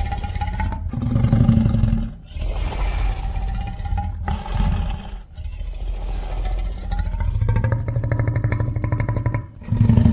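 Synthesized kaiju roars and growls of King Caesar: a string of drawn-out bellowing calls with short breaks between them, heavy low rumble underneath, and a fast rattling growl in the last few seconds.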